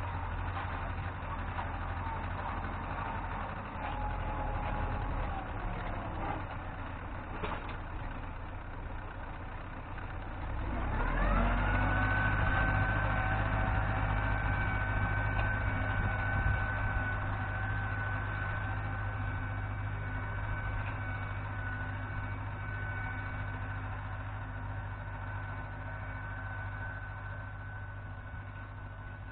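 Tractor engine running under load while ploughing; about ten seconds in the revs climb in a rising whine and then hold steady at the higher pitch.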